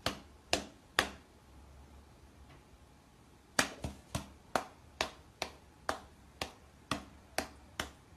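A series of sharp snaps: three about half a second apart, then after a pause of about two seconds a steady run of roughly two a second.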